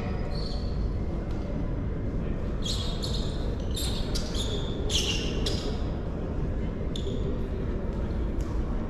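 Live sound of an indoor football match in a sports hall: the ball being kicked and bouncing, and a run of short, sharp high squeaks in the middle, over a steady echoing hall rumble.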